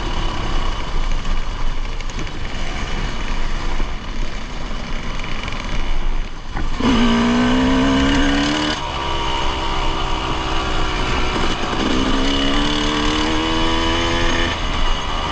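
Dirt bike engine running on a gravel trail, revving up with a rising pitch twice: about seven seconds in and again about twelve seconds in, over a steady rushing noise.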